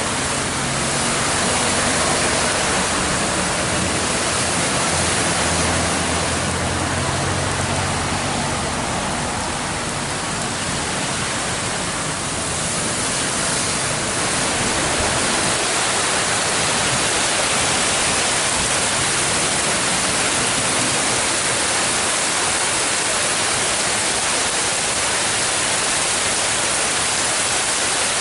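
Steady rushing water noise during a flood, with a faint low hum in the first eight seconds or so.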